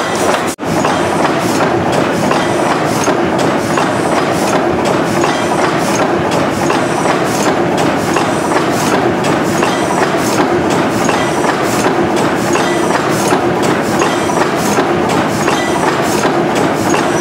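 Large old stationary multi-cylinder engine running steadily, with a continuous mechanical clatter and sharp clicks repeating in a regular rhythm from its valve gear and oilers.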